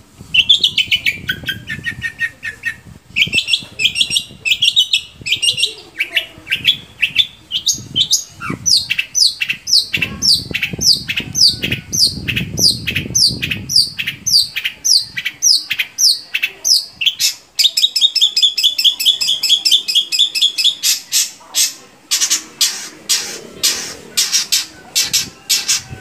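Long-tailed shrike singing loudly in a fast, varied run of phrases: strings of quick falling notes at about three a second, a rapid trill a little past the middle, and harsh repeated notes toward the end.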